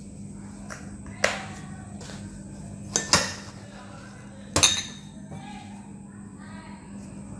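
Glass bowls clinking and knocking against a stainless steel tray as they are set down: one sharp clink about a second in, a quick pair about three seconds in, and one more at about four and a half seconds, each ringing briefly.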